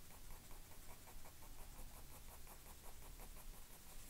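Faint, quick strokes of a 2B graphite pencil scratching on textured sketch paper, about seven a second, laying in short fur lines. The strokes thin out to a few scattered scratches after about three seconds.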